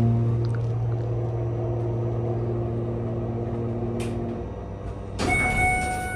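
1998 Schindler MT 300A hydraulic elevator's machinery hums steadily and dies away after about four seconds. About a second later there is a sudden clunk and a bright ding from the elevator's chime, which rings on to the end.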